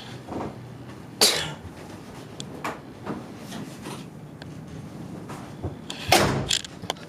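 Two heavy thumps, one about a second in and a louder one about six seconds in, with scattered light knocks and rustling between them.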